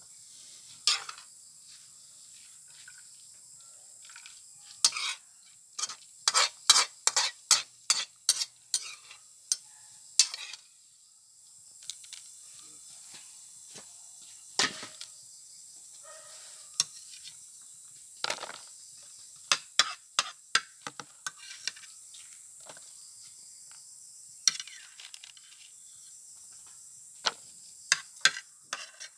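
Kitchen utensils clinking and scraping against a metal wok and a mesh strainer as boiled fern greens are lifted out, with a quick run of clinks about six to ten seconds in. Scattered single knocks follow as sliced onion and garlic are handled in a plastic basin.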